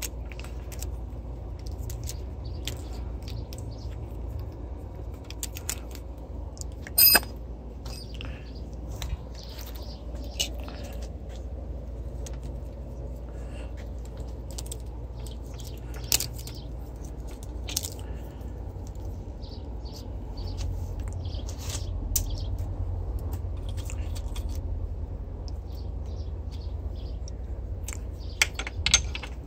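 Scattered clicks and light metallic taps of small parts and tools being handled, with one louder, ringing metal ping about seven seconds in, over a steady low rumble.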